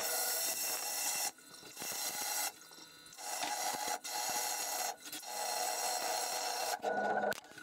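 Vixen Aquablast wet-blasting cabinet, its blast gun hissing in repeated bursts with short breaks as an aluminium engine part is blasted with a spray of water and abrasive.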